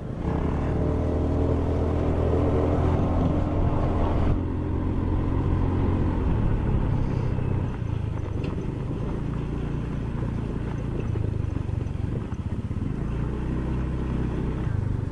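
Motor scooter engine running steadily as it is ridden, a continuous drone. The sound changes abruptly about four seconds in.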